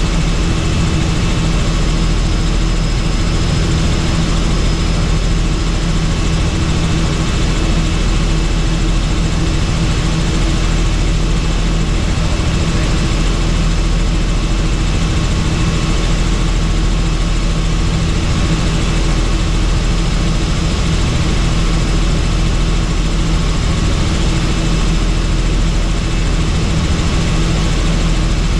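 Helicopter in flight: steady, loud rotor and engine noise, a deep drone with a few held tones above it, unchanging throughout.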